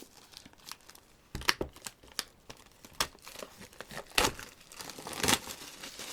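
Plastic shrink wrap on a CD album crinkling in irregular bursts as it is handled and pulled at, the loudest crackles a little after four seconds and a little after five.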